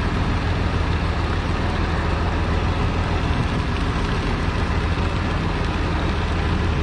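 Fishing boat's engine running steadily with a low, even hum, under a steady rushing noise.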